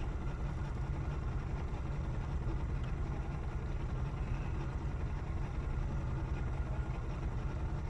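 A steady low engine rumble at an even level, like an idling motor.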